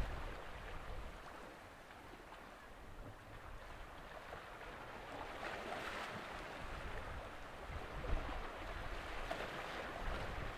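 Wind buffeting the microphone by the water, with a steady hiss of wind and waves. The gusts ease about a second in and pick up again briefly near the end.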